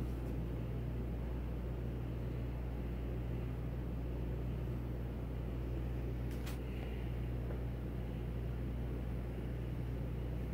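Steady low machine hum with a faint hiss under it, and one short click about six and a half seconds in.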